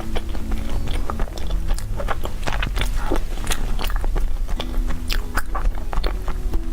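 A person biting and chewing cake, with a dense run of short, sharp mouth clicks and smacks, over soft background music with held notes.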